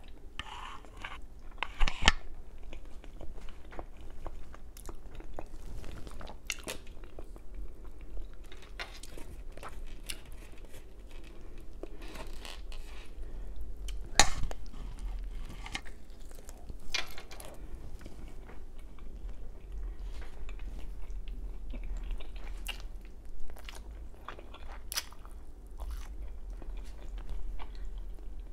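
A person eating close to the microphone: chewing and biting into fettuccine and a honey-glazed chicken drumstick, with wet mouth sounds and many short clicks. The loudest bites come about two seconds in and again just after the middle.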